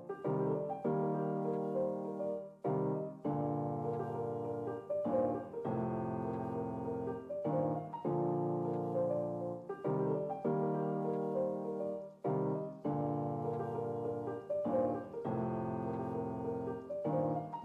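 Background music: a piano playing repeated sustained chords, changing about every two seconds.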